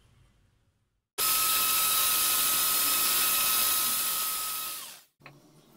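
Electric hand mixer switched on about a second in, its motor whining steadily at one pitch as the beaters beat flour and cocoa into chocolate cake batter, then switched off near the end, the pitch sagging as it stops.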